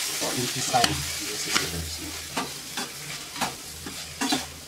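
Pork intestine curry sizzling in a pan while a slotted metal spatula stirs and tosses it, scraping and clacking against the pan every half second or so.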